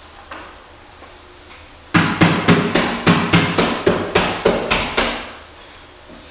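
A quick run of about a dozen knocks on a wooden fireplace mantle, about four a second, starting about two seconds in and stopping after about three seconds, as the mantle is worked into place against the wall.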